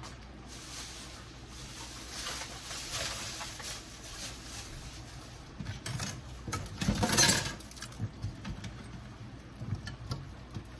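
A pan of chicken stewing in sauce bubbling and spattering on a gas stove, with a louder brief handling noise about seven seconds in.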